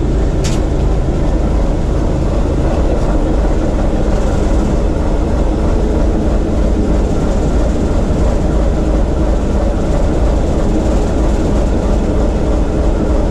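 The TEM2 shunting locomotive's diesel engine, heard from inside the cab, runs steadily at low revs on the second controller position, its governor holding about 380 rpm. It is being run in under load after a major overhaul. There is one brief click about half a second in.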